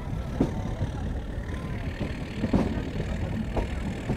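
Meter-gauge train running: a steady low rumble with irregular knocks, strongest a little past halfway.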